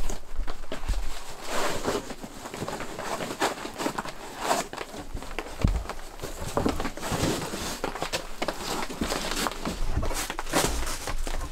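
Rustling and irregular knocks as a rolled foam sleeping mat and camping gear are handled, with footsteps and bumps on a wooden plank floor.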